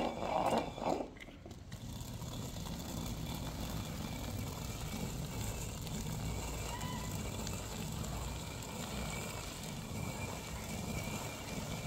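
Stone hand quern grinding wheat: the upper millstone turned round by its wooden handle, stone grating on stone over the grain. A brighter grating for about the first second, a short break, then a steady low rumble.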